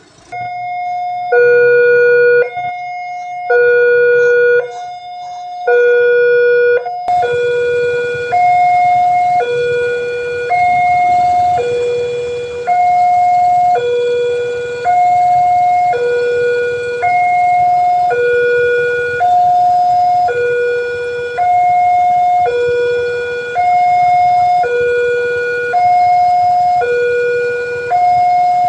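Railway level-crossing warning alarm sounding a loud two-tone hi-lo signal, switching between a higher and a lower tone about every 0.7 seconds. It warns that a train is approaching and the crossing barrier is closing.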